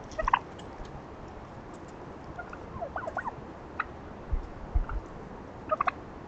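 Wild turkeys giving short, soft calls: a couple of quick notes at the start, a cluster of notes sliding up and down about three seconds in, and another quick group near the end. Two dull low thumps come in between.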